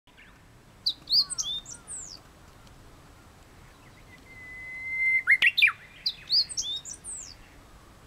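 Japanese bush warbler (uguisu) singing its 'hoo-hokekyo' song once about halfway through: a long steady whistle that swells in volume, then a quick flourish of notes. Another small songbird sings a short, high twittering phrase twice, about a second in and again right after the warbler.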